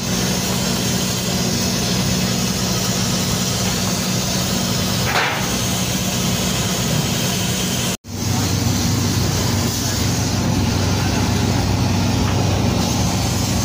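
Steady engine-driven machinery running with a hum and a hiss over it. The sound cuts out for an instant about eight seconds in and comes back with a deeper, stronger hum.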